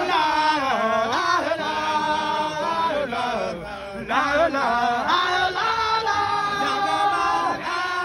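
A man chanting a Sufi zikr into a microphone, a single strong voice carrying long held notes that slide up and down in melismatic phrases, with a short dip in the middle.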